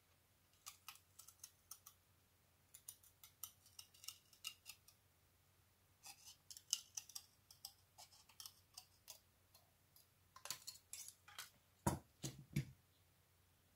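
Scissors snipping through a 0.35 mm carbon-fibre sheet to cut reed-valve petals: runs of quick, crisp snips with short pauses between them. Near the end come a few duller knocks.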